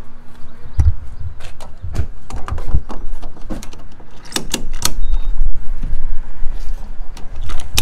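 A string of knocks, clicks and thumps as people get into a car: doors opening and shutting and things being handled, with a low rumble through the second half.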